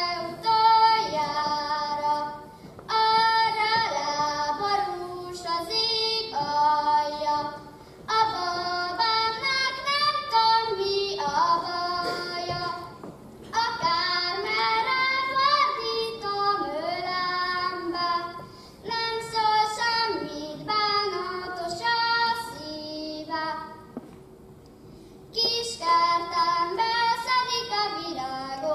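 A young girl singing Hungarian folk songs solo, in sung phrases broken by short breaths, with a longer pause near the end before the next phrase begins.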